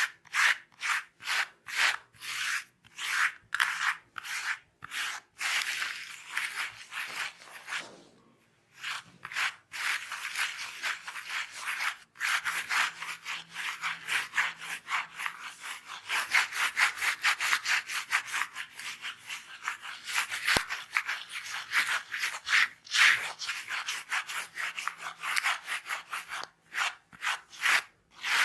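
Rapid rhythmic rubbing strokes of a head massage on hair and scalp, with a brief pause about eight seconds in.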